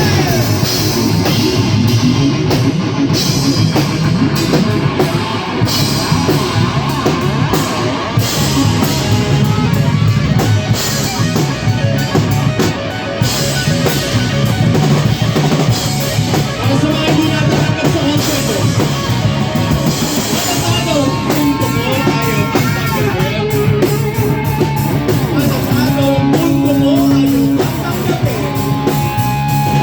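Live rock band playing, led by a drum kit and guitar.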